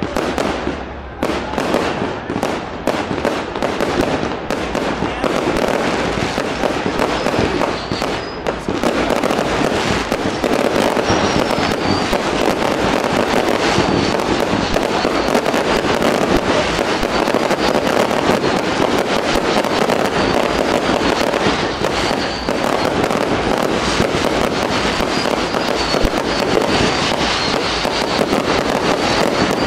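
Fireworks display: bangs and crackling from aerial shells and rising comets, separate at first, then thickening after about eight seconds into an almost continuous barrage.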